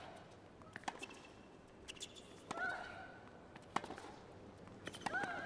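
Tennis rally: sharp pops of the ball coming off the racket strings about once a second, and twice a short grunt from the player striking the ball.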